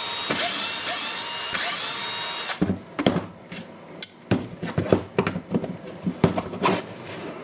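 A small power tool whirs for about two and a half seconds, its pitch wavering, and cuts off sharply. Then comes a string of clicks and knocks from hard parts being handled during disassembly.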